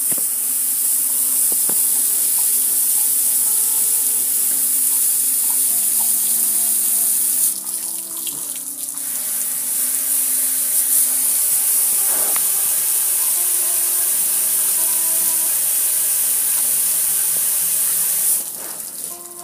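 Water spraying from a garden hose onto a gas grill, a steady hiss of spray hitting metal and splashing off; the spray breaks off briefly about eight seconds in and again near the end.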